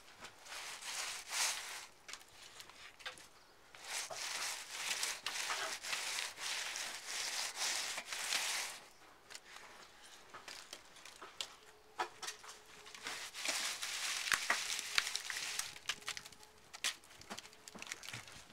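Wet clay-and-straw mix being pressed and rubbed into a cracked straw-clay wall by a gloved hand, the straw crackling and scraping. It comes in several stretches of a few seconds each, with scattered sharp clicks.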